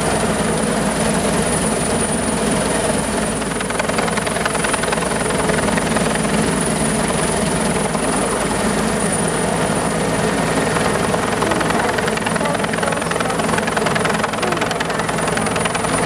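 Fire and disaster-prevention helicopter hovering close overhead: loud, steady rotor and engine noise with a thin high-pitched whine over it.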